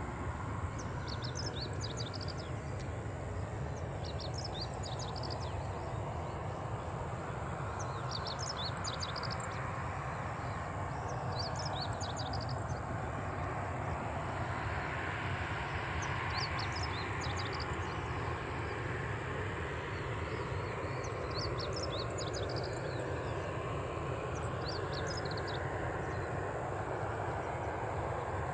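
Distant Boeing 737-800's CFM56-7B jet engines running at low taxi thrust: a steady rumbling hiss with a slow whooshing sweep that rises and falls over several seconds. Short high chirps come in clusters every few seconds.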